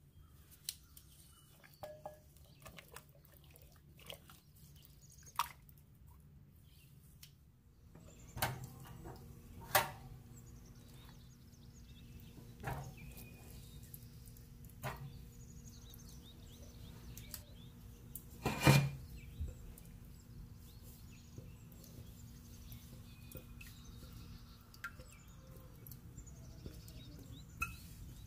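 Scattered knocks and clicks of kitchen utensils and cookware during food preparation. A low steady hum comes in about eight seconds in, and faint bird chirps sound in the background.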